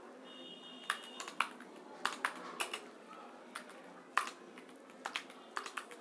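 Keys on an external computer keyboard, plugged into a phone through an OTG adapter, being typed on. The clicks come singly and in short runs with irregular pauses between them.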